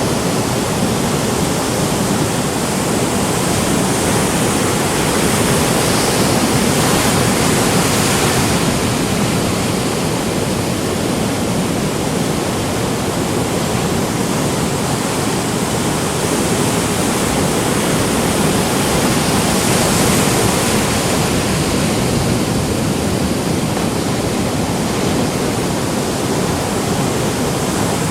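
Ocean surf breaking on the beach: a steady, dense wash of waves with slow swells in loudness, one about 6 to 8 seconds in and another around 18 to 21 seconds.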